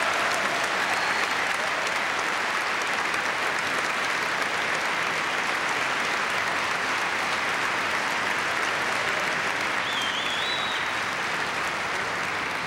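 Large audience applauding steadily, with cheering, the clapping filling the hall and easing only near the end.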